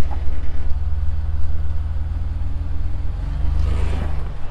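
2020 Jeep Wrangler EcoDiesel's 3.0-litre turbodiesel V6 running at low revs with a deep, even drone. The revs rise about three seconds in and drop back just before the end.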